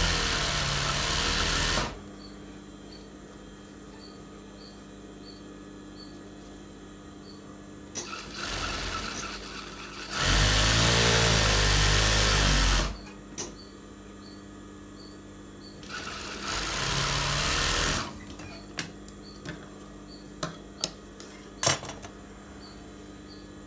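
Industrial lockstitch sewing machine stitching in runs of a few seconds: one at the start, a longer one in the middle and another later on, with a steady motor hum between runs. A few sharp clicks near the end.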